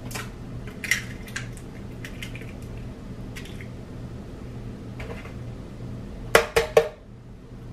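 Eggs being cracked on the rim of a blender jar: a few light clicks, then three sharp knocks in quick succession near the end.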